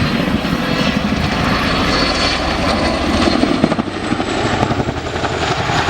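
Boeing Chinook HC2 tandem-rotor helicopter flying, its rotor blades beating steadily, slightly quieter about four seconds in.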